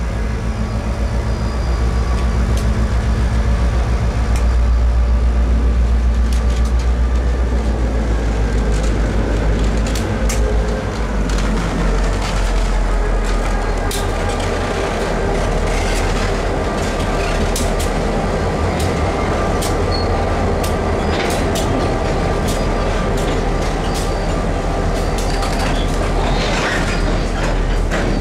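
Two Canadian Pacific diesel locomotives rolling slowly past close by with their engines running in a steady low rumble. Their wheels click over the rail joints, and the engine note shifts about ten seconds in.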